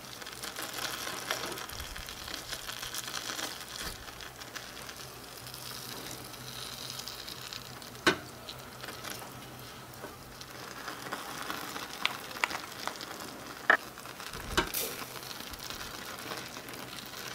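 Vegetables sizzling in a miniature metal wok while being stirred and tossed with two small wooden spatulas, with several sharp taps of the spatulas against the pan.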